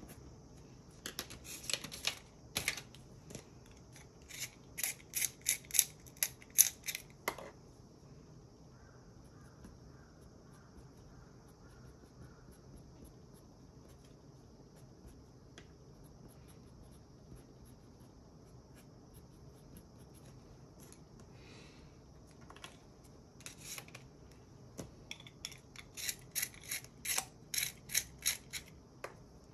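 Colored pencil scratching on paper in quick runs of short hatching strokes, then only faint strokes for a long stretch. Near the end comes a run of quick rasping strokes as a colored pencil is twisted in a small hand sharpener.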